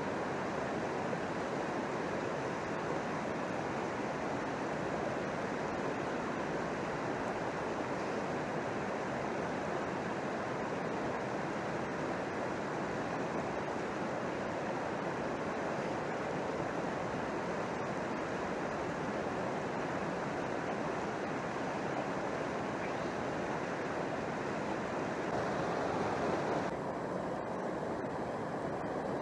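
Water rushing over rocks in a shallow mountain creek, a steady even wash; its tone changes slightly near the end.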